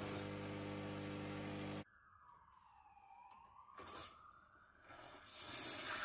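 Rancilio Silvia Pro espresso machine's vibratory pump humming steadily, then cutting off abruptly about two seconds in. After a near-silent gap with a faint click, a hiss rises near the end as the steam wand valve is opened.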